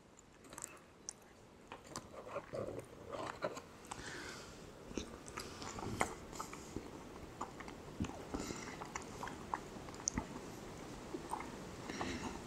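A man chewing a spoonful of rehydrated freeze-dried beef and pasta hot pot, close to a clip-on microphone, with many small irregular clicks and soft rustles.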